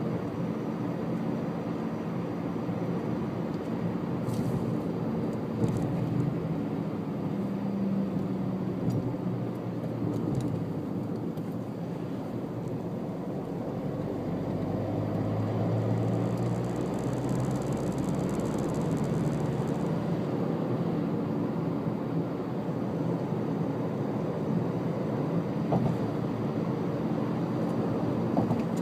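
A moving car's engine and tyre noise, heard from inside the car as a steady low drone that swells briefly about halfway through.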